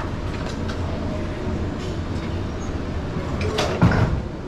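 Gym room sound: a steady low hum with scattered small metallic clicks, and one louder clatter of gym equipment a little under four seconds in.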